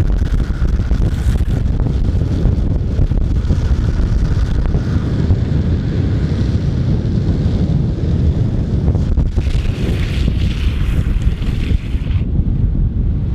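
Heavy wind buffeting and rushing over the microphone, a dense steady rumble, as on a fast downhill skateboard run, with a brighter hiss for a couple of seconds near the end.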